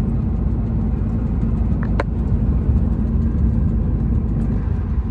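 Steady engine drone and road rumble inside the cab of a 2015 Mercedes-Benz MP4 truck cruising on the highway in top (12th) gear of its automatic gearbox. A single short click comes about two seconds in.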